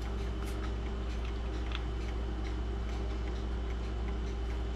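Mechanical clocks ticking lightly over a steady low hum.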